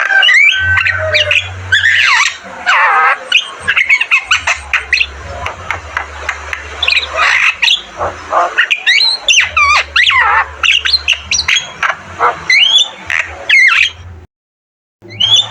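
Javan myna calling loudly: a rapid, continuous run of harsh squawks, chirps and sweeping whistled notes, cut off by a brief gap of total silence near the end.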